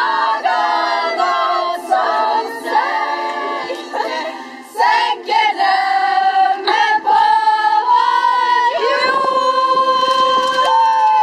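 A group of young women singing together without accompaniment, in short phrases and then long held notes near the end.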